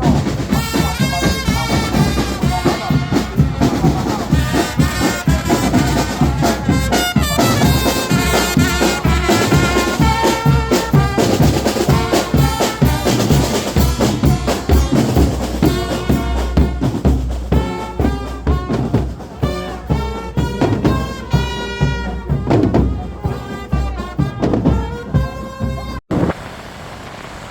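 Brass band playing with drums: loud horns over a steady drumbeat. It cuts off abruptly near the end, giving way to a steady wind-like rush.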